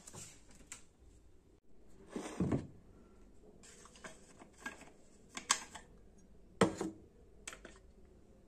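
Objects being handled on a table: a rustling scrape about two seconds in, then a few sharp clicks and knocks.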